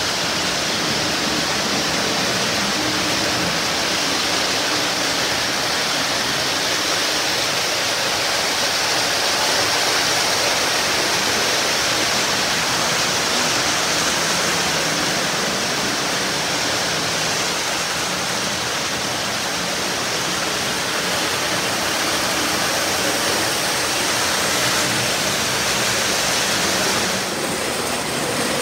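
Several early-1950s Lionel O gauge trains running at once, including a twin-motor Santa Fe F3 diesel: a steady rushing whir of wheels on three-rail tinplate track and open-frame motors.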